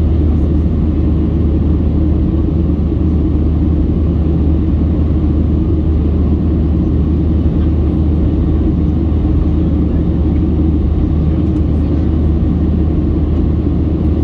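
Steady low rumble of a Boeing 737-700's CFM56-7B turbofan engines and rushing air, heard inside the cabin beside the wing while the airliner climbs after takeoff.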